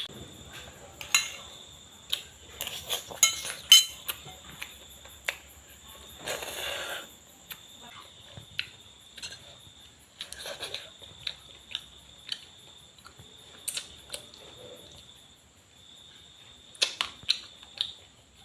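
Scattered clinks and knocks of kitchen utensils against dishes, with a short scraping rustle about six seconds in. A steady faint high whine sits behind them.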